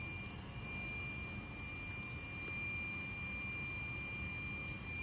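Steady high-pitched electronic whine of two thin tones over a low, even hum from a running mask-making machine's electrical equipment.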